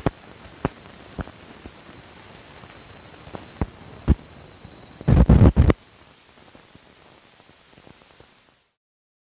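Run-out of an old film print's soundtrack after the music ends: steady hiss with scattered sharp pops and clicks, a short loud burst of crackle about five seconds in. The noise cuts off to silence near the end.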